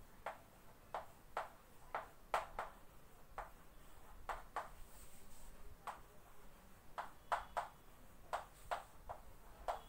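Chalk tapping and scraping on a chalkboard as words are written: a quiet string of short, irregular clicks, about two a second.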